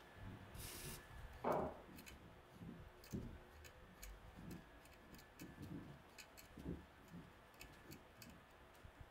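A brief hiss of WD-40 sprayed onto a hand tap, a single knock, then a steel thread tap being worked into a steel plate with a tap wrench: irregular sharp ticking and clicking with soft low knocks as the wrench turns.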